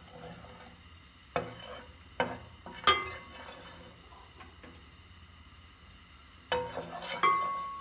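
Wooden spoon stirring melting ghee in a metal cooking pot, knocking against the pot a few times so the metal rings briefly: three knocks in the first three seconds, then a quick run of knocks near the end.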